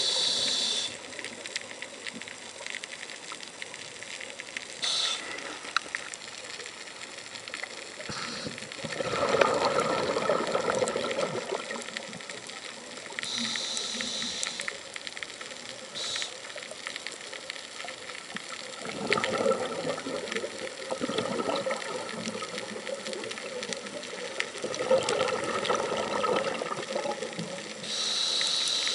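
Scuba regulator breathing heard underwater: short hissing inhalations through the regulator and longer gurgling bursts of exhaled bubbles, repeating over several breaths.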